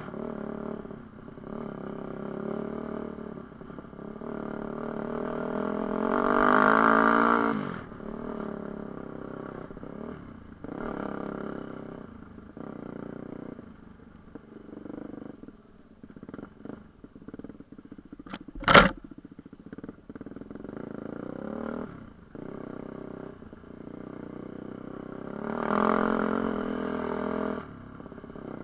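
Enduro dirt bike engine under the rider, its note rising and falling with the throttle, opening up hardest about a quarter of the way in and again near the end. A single sharp knock cuts through about two-thirds of the way in.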